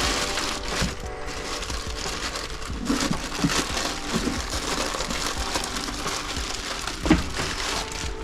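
Scraping and rustling of hands working on car parts, with a few knocks, the sharpest near the end; faint background music underneath.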